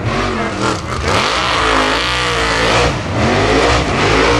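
Formula Offroad buggy's engine revving hard under full load as it claws up a steep dirt bank. Its pitch swings up and down several times, with a dense spray of noise over it.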